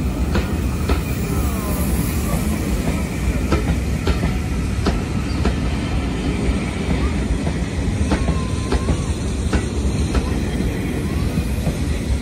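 Heritage railway passenger coaches rolling past close by: a steady rumble of wheels on rail, broken by irregular sharp clicks as the wheels cross rail joints and pointwork. A few brief wheel squeals come in, about a second in and again near the end.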